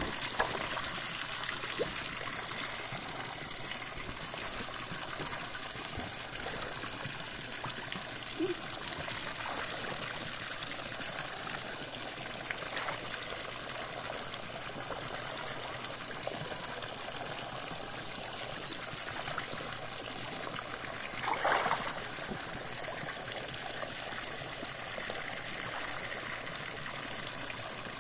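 A jet of water arcing from a spout into a swimming pool, splashing and trickling steadily onto the surface. About three-quarters of the way through there is one brief louder swash of water.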